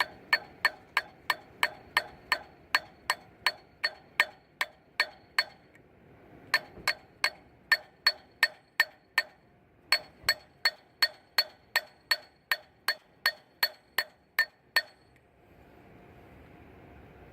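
Hammer blows on a socket driving the AC compressor pulley bearing, about three sharp metallic strikes a second, each with a short ring. The strikes come in three runs with brief pauses between, and stop about fifteen seconds in.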